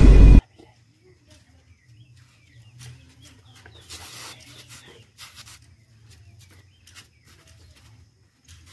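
Background music with a heavy throb cuts off abruptly half a second in, leaving quiet outdoor ambience with faint chicken clucking and scattered small clicks.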